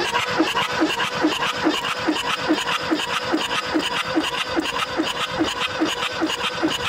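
Kubota B6100's three-cylinder diesel being turned over by its electric starter, without firing, for a wet compression test: a steady starter whine with a regular pulse a little over twice a second, stopping near the end. With oil in the cylinder the reading climbs sharply, the sign of worn piston rings.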